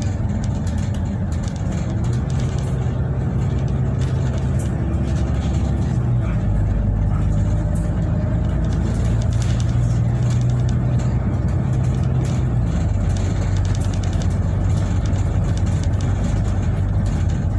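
Bus engine and road noise heard from inside the passenger cabin while the bus drives. The low engine hum shifts to a new pitch a few times, about 2, 6 and 12 seconds in, as the bus changes speed.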